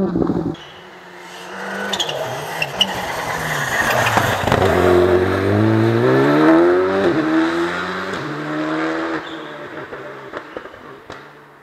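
Rally car engine coming into a tight hairpin, then revving hard as it accelerates out, its pitch climbing steeply with a gearshift break and a second climb. The engine fades as the car pulls away, with a few sharp cracks near the end.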